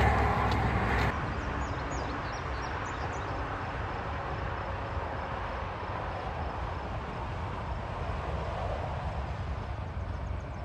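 Road traffic. A vehicle passes close by and cuts off abruptly about a second in, leaving a steady distant traffic hum with a few faint, short high chirps over it.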